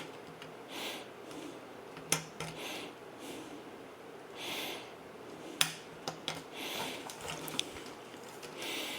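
Soft breathing about every two seconds, with a few sharp light clicks and rattles of metal hanging chain and clips as a shop light fixture is hung from its chain.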